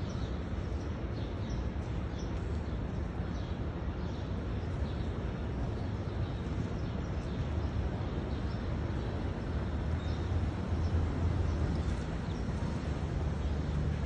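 Sparrows giving short, faint chirps scattered through, over a steady low background rumble.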